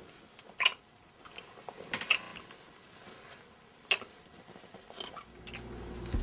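Lip smacks of two people kissing: a few short, sharp smacks, about one every second and a half, over quiet room tone.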